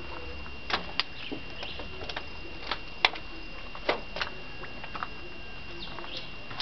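Scattered sharp clicks and taps at irregular intervals, the loudest about three seconds in, over a thin steady high-pitched whine.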